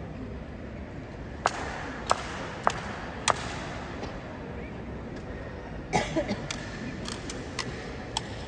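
Sharp clacks from the honor guards' drill (boots and rifles striking the stone floor): four evenly spaced strikes, then a quicker cluster of clacks and clatter about six seconds in and a few single clacks after.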